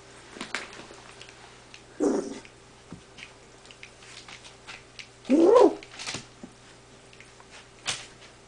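Golden retriever puppies play-fighting: a short growly bark about two seconds in, then a louder bark midway that rises and falls in pitch, with faint scuffling taps between.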